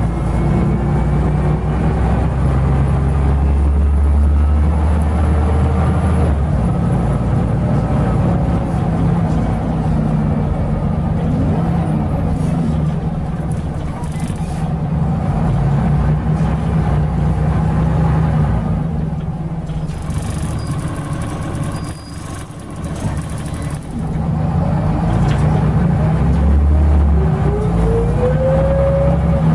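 Scania L94UB city bus heard from inside the cabin: its rear-mounted 9-litre inline-six turbo diesel drones steadily as the bus drives, through a ZF five-speed automatic gearbox. The engine eases off about two-thirds of the way through, then picks up again with a rising whine near the end.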